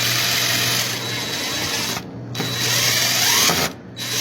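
Power drill driving a screw into the wood frame in two runs, the first stopping about two seconds in, the second ending with a short rising whine.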